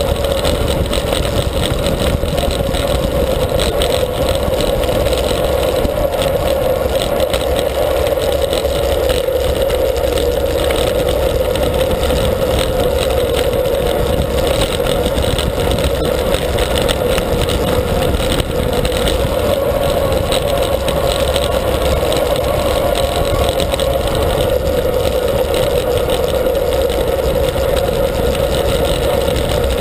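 Wind rushing over the microphone of a handlebar-mounted action camera during a fast road-bike descent, mixed with tyre noise on the asphalt: a loud, steady rush with a droning note running through it.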